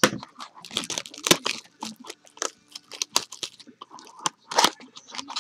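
Irregular crackling, crinkling and snapping of sports card pack wrappers being torn open and cards handled, with sharp spikes about a second in and again near the end.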